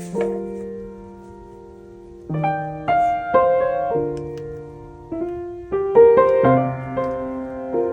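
Soft piano background music: notes struck and left to ring, in short phrases with a pause of about two seconds near the start.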